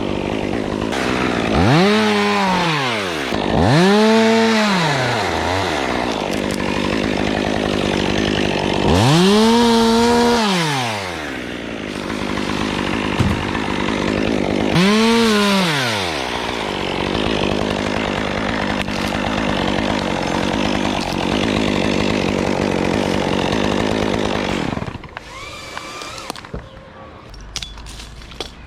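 Two-stroke chainsaw running, revved up and let back down to idle four times, each rev climbing and falling away over a second or so. The engine cuts off about 25 seconds in, leaving faint clicks and handling noise.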